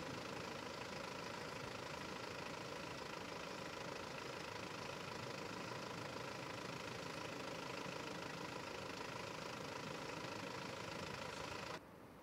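Vehicle engine idling steadily, with a faint hum over a steady rush, cutting off abruptly near the end.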